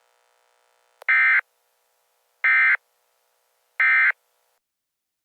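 Emergency Alert System digital data tones: three identical short, screechy bursts about a second and a half apart, the End of Message signal that closes the alert.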